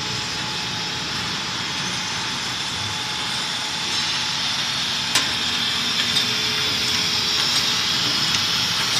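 Bottling machine running: the steady mechanical noise of the 3-in-1 rinsing, filling and capping machine and its slat-chain conveyor carrying capped glass bottles. A few light clicks stand out over it, the sharpest about five seconds in.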